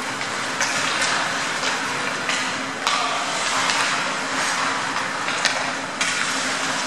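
Live ice hockey play in a rink: skates scraping on the ice, with a handful of sharp clacks of sticks and puck, the sharpest about five and a half seconds in, over a steady low hum.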